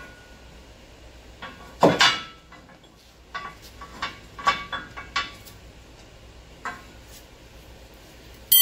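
Metal tools knocking and clinking against the steel torsion-bar suspension parts under a truck. A sharp knock comes about two seconds in, then a run of lighter clinks, then another loud clank at the very end.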